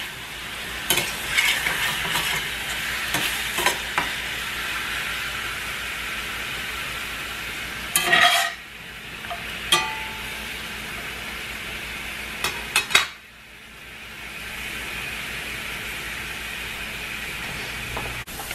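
Chicken strips and sliced mushrooms sizzling steadily in skillets on a gas stove, with clacks and scrapes of a spatula and fork against the pans as the food is turned. A little after halfway the sizzle drops away suddenly, then comes back up over a couple of seconds.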